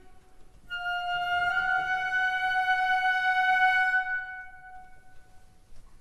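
Background music: a single high sustained instrumental note, held for about three seconds and then fading away into a quiet pause.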